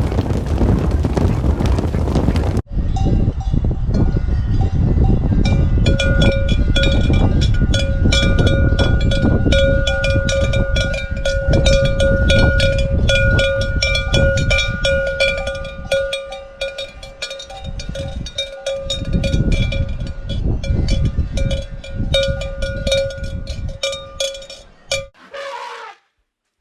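Several cowbells clanking and ringing over one another without a break, as belled cattle move about. This is preceded by a couple of seconds of rough wind-like noise and followed near the end by a short animal call.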